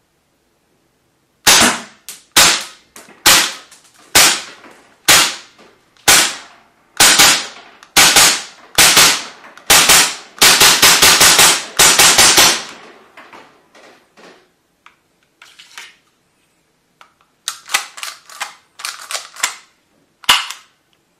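Tokyo Marui H&K USP gas-blowback airsoft pistol firing, each shot a sharp pop with the slide's snap. The first shots come about once a second, then quicker, ending in a rapid string of shots. Fainter scattered clicks follow, then one more sharp report near the end.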